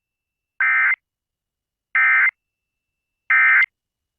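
Emergency Alert System end-of-message (EOM) code: three short bursts of buzzy digital data tones, evenly spaced about a second and a half apart, signalling the end of the alert.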